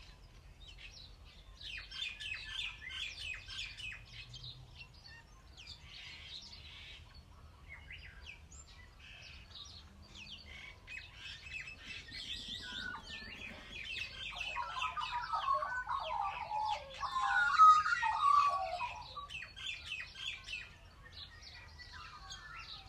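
Birdsong: many small birds chirping and twittering throughout, joined by a louder, lower warbling song from about 14 to 19 seconds in.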